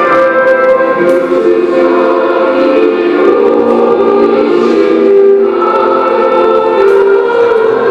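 Large ensemble, orchestra with brass and possibly voices, playing slow sustained chords that shift every second or so.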